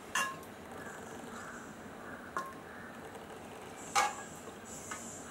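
A spoon clicking and tapping against the side of a cooking pot, about four light knocks, while chicken gravy is spread over a layer of cooked basmati rice. The loudest knock comes about four seconds in.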